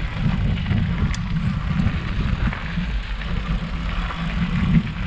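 Mountain bike rolling over a dirt trail, heard through a handlebar-mounted camera: a steady low rumble of tyres and handlebar vibration, with faint ticks and rattles.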